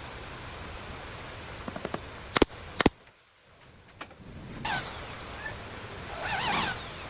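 Hand woodworking on a piece of wood: two sharp knocks, then a scraping, rasping stroke that swells near the end.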